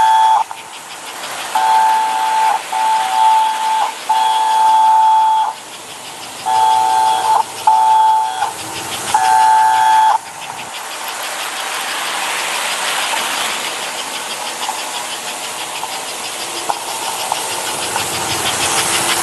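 1958 American Flyer 21129 toy steam locomotive's electric whistle sounding in a string of short and long blasts, a two-note tone. From about ten seconds in, the whistle stops and the train runs on with a steady, rapidly pulsing chuffing hiss and the rattle of wheels on track.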